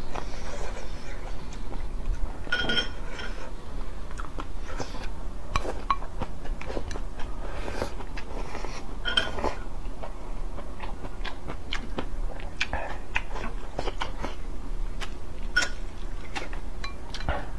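Close-miked eating sounds: wet chewing and smacking of stewed pickled Chinese cabbage (suancai) with glass noodles, many small sharp clicks, and a couple of longer slurps from the bowl.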